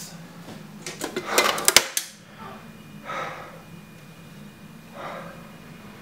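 A man breathing deeply, with slow audible breaths about three and five seconds in. Before them comes a short clatter of sharp metallic clicks and clanks, the loudest sound here.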